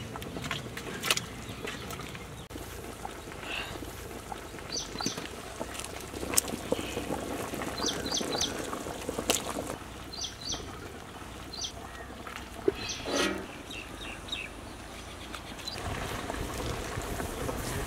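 Pieces of fish being slipped into a large pot of thin curry broth, with small liquid splashes and clicks, while birds chirp in short groups of two or three high notes.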